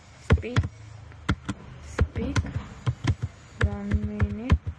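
Computer keyboard typing: a string of separate keystroke clicks at an uneven pace. A few brief vocal sounds are mixed in, and a voice holds one steady pitch for almost a second near the end.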